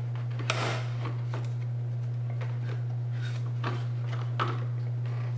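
Plastic radiator fan blade knocking and scraping against the engine-bay parts as it is lifted out by hand: one sharper knock about half a second in, then a few lighter taps and scrapes. A steady low hum runs underneath.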